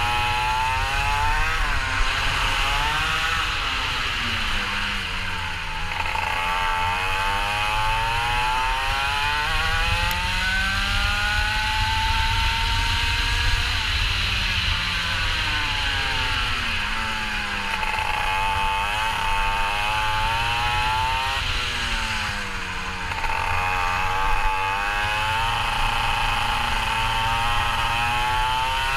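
Go-kart engine at full song through a lap, its pitch climbing as it accelerates and dropping sharply each time it comes off the throttle, several times over, with one long climb in the middle. A steady low rumble runs underneath.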